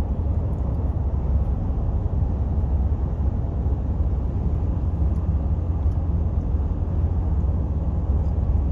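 Steady low rumble of a moving vehicle, road and engine noise.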